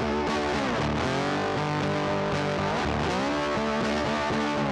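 Instrumental background music led by a distorted electric guitar, its notes bending and sliding up and down over a steady beat.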